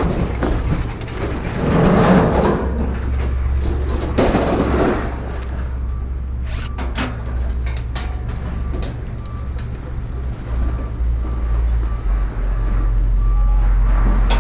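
A steady low rumble, louder near the end. Over it come two swells of scraping or rustling noise, about two and four seconds in, and a few scattered clicks and knocks.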